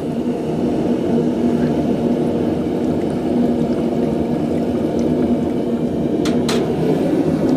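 Hot, thin steel vise spacer quenched in a quench tank: the liquid boils and bubbles steadily around it. Two sharp clicks come about six seconds in.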